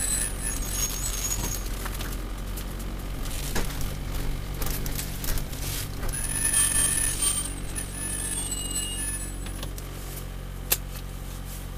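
Toyota Celica Alltrac's turbocharged four-cylinder engine running at low revs, heard from inside the cabin as the car rolls slowly, with a steady low drone. Brief high-pitched squeals come and go, and a sharp click sounds near the end.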